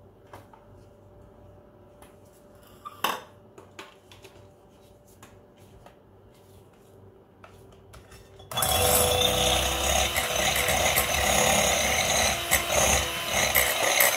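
A few light clicks and knocks, then, well past halfway, an electric hand mixer switches on suddenly and runs steadily at full speed, its beaters whisking egg whites in a glass bowl.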